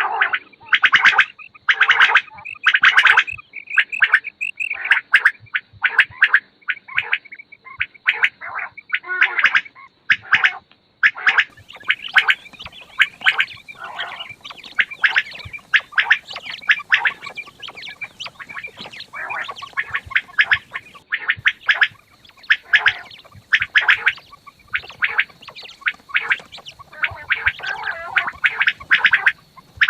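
Quails calling over and over in rapid runs of short, sharp notes, with a faint steady high-pitched tone underneath.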